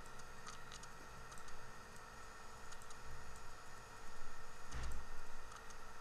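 Scattered light clicks from a computer mouse and keyboard in use, over a faint steady electrical hum. A single low thump sounds a little before the end.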